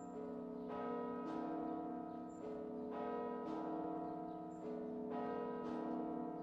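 Bells ringing in a repeating peal: a new stroke every second or so, often in pairs, each note ringing on under the next.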